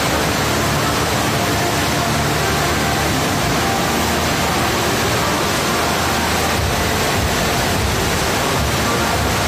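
Steady rush of water pumped up the padded slope of a stationary-wave surf simulator, with no breaks or changes.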